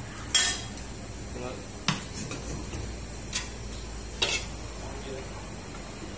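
A metal ladle and spoon clinking against stainless steel pots and bowls while sauce is ladled onto chicken: four sharp clinks a second or so apart, the first the loudest.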